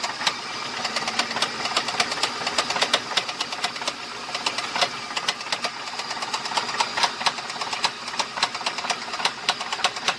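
The engine of a 2005 Ford F-150 with 334,000 miles running with a fast, steady knocking, the sign of a worn-out, bad motor.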